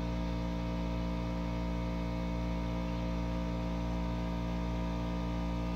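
A steady electrical hum with several fixed tones and a low buzz, holding at an even level throughout.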